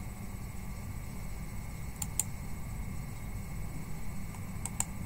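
Computer mouse clicking: a quick pair of clicks about two seconds in and another pair near the end, over a steady low hum.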